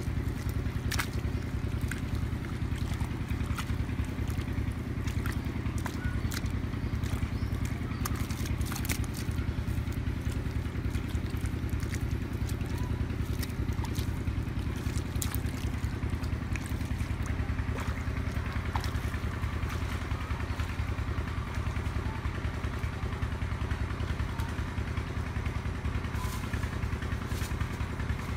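A small engine running steadily, a low unbroken drone, with scattered faint clicks over it.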